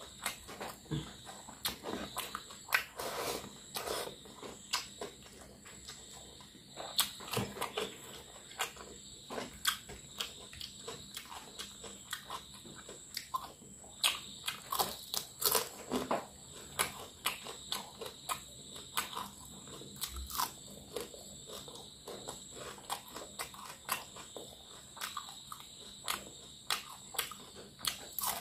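Close-up eating sounds: crunchy bites into crisp fried mathi (sardines) and wet chewing, with many sharp crunches and clicks, unevenly spaced, all the way through.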